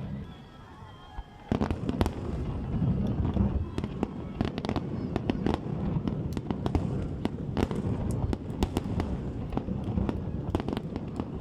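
Fireworks going off: after a quieter second and a half, a dense run of sharp cracks and bangs over a continuous low rumble.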